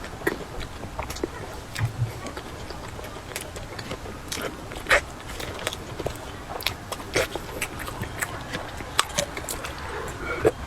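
A person biting and chewing food, heard as irregular crisp clicks and small mouth and utensil noises.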